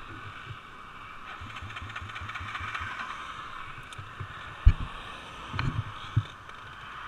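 A quad's engine running with a low, rhythmic throb, then several heavy thuds from about four and a half seconds in as the quad flips over backwards onto the road.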